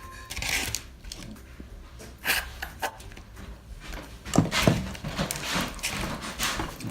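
Slime being worked by hand with foam beads mixed in, giving irregular squishing and crackling.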